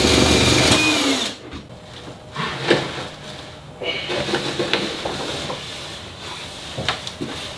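A power tool's motor running, then winding down with a falling whine about a second in. Scattered knocks and bumps follow as someone crawls about inside a kitchen cabinet.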